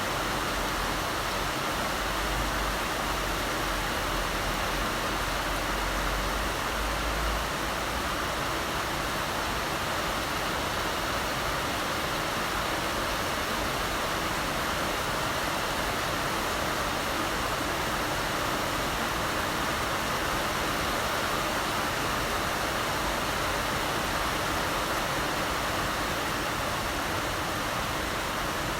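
Heavy rain falling, a steady, even hiss with no separate drops standing out.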